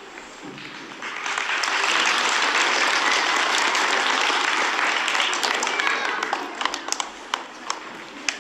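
Audience applauding: the clapping swells about a second in, holds steady for several seconds, then thins out into a few scattered claps near the end.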